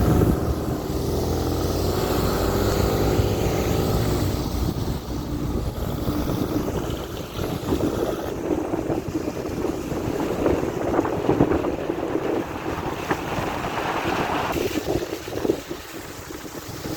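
An engine running while travelling, with wind buffeting the microphone and rough knocks and rattles from the ride.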